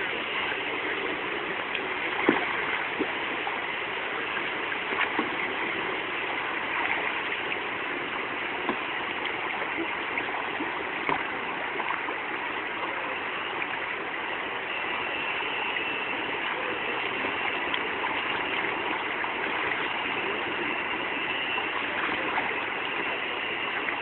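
Steady rush of flowing river water, an even noise throughout, with a few brief sharp sounds scattered through it.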